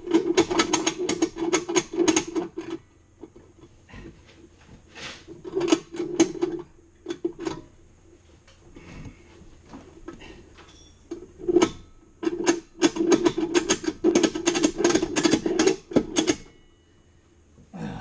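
Three bursts of rapid metallic clicking and rattling from the bolt-cutter press rig being worked to force the large bolt cutters' jaws onto a hardened padlock shackle. The bursts come at the start, around the middle, and for several seconds near the end.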